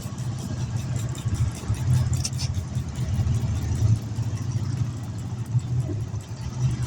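An engine idling steadily with a low, pulsing hum.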